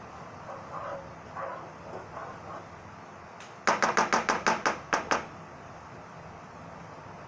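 Knife chopping on a cutting board: a quick run of about ten sharp strokes lasting about a second and a half, around the middle.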